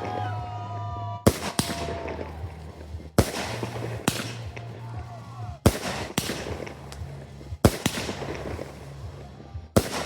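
Aerial fireworks bursting: loud sharp bangs about every two seconds, mostly in pairs a fraction of a second apart, each trailing off in echo.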